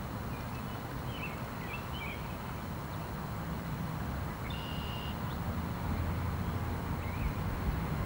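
Steady low outdoor rumble with a few faint high bird chirps about a second in and again near the end, and a brief high steady tone around the middle.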